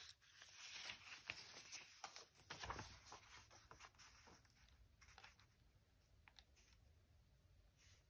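Faint rustling and crinkling of a sheet of paper being lifted and moved over a journal page, busiest in the first three seconds, then only a few soft clicks and rustles.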